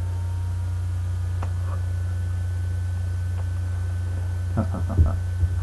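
Steady low hum from the recording hardware with a faint hiss over it, the kind of background noise picked up from a computer fan or electrical interference. A few short soft knocks come near the end.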